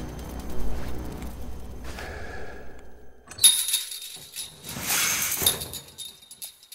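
Film soundtrack: a low, dark music bed fades out over the first couple of seconds. Two loud, harsh hissing hits with a high ringing edge follow, title-card sound effects about three and a half and five seconds in.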